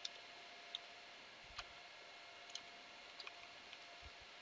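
Faint computer keyboard keystrokes, about eight single clicks spaced irregularly, over a faint steady background hiss.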